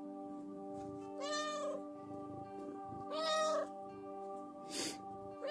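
Orange tabby cat meowing twice, each a short call about half a second long, asking to be petted, over steady soft background music. A brief noisy burst comes near the end, just before a third meow begins.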